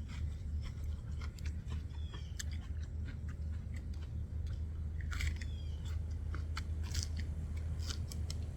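A person chewing and crunching food, with scattered short clicks and a few brief chirps over a steady low rumble.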